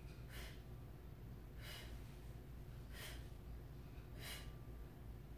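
A woman's faint, quick hissing breaths while she holds an ab crunch, four of them about 1.3 seconds apart, over a low steady hum.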